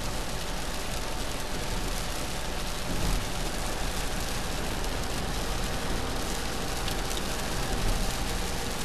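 Steady rush of rain hitting a car's windshield and body at highway speed, mixed with tyre and wind noise heard inside the cabin, with no wipers running. A short low bump about three seconds in.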